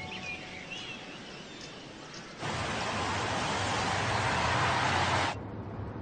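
Faint bird chirps in woodland. About two and a half seconds in, a loud steady rushing noise starts abruptly, lasts about three seconds and cuts off sharply. A low steady hum of a car interior follows.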